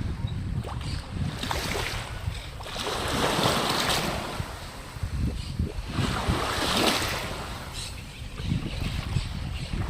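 Waves washing in twice, each a slow swell of rushing noise that rises and fades away, over steady wind buffeting the microphone.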